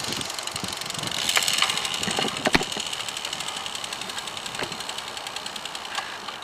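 A bicycle being ridden on pavement, with a fast, even mechanical ticking that eases off toward the end and a few sharper clicks scattered through it.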